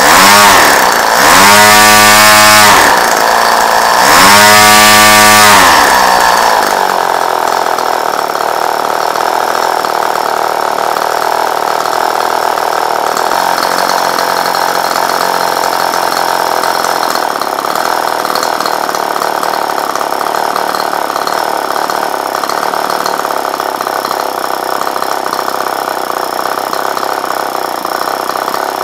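Tartan 22 cc model engine, converted to spark ignition, running with its propeller on a test stand. It is revved up and down a few times in the first several seconds, then held at a steady high speed.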